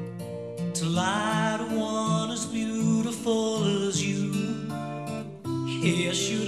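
Background music: a melody over held chords.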